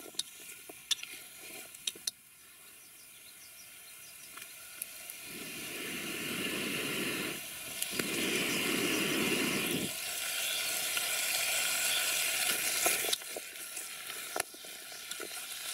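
Onion, carrot and steak pieces sizzling in a pot over a wood fire, the sizzle building to its loudest through the middle and dropping off near the end. A few sharp clicks at the start.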